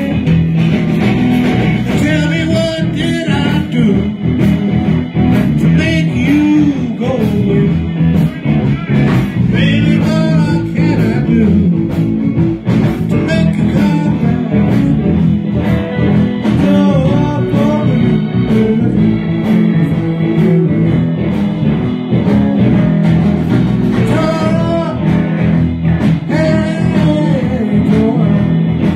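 Live blues band playing at full volume: electric guitars over a drum kit, with bending melodic lines above the rhythm.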